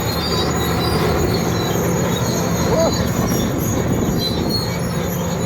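Komatsu D80A crawler bulldozer working, its six-cylinder diesel engine running steadily under load while the steel tracks grind and squeal.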